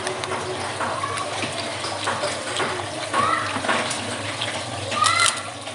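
Wet slurping and sucking of mussel meat and sauce straight from the shells, with small clicks. Two louder rising slurps, about three seconds in and near the end.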